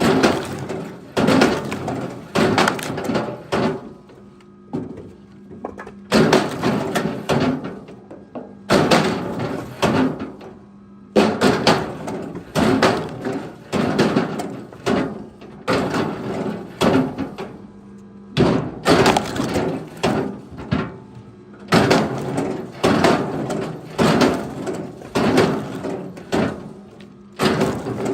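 Wooden pieces clattering and knocking together, in bursts of several sharp knocks a second with short pauses between, like split firewood being thrown onto a pile.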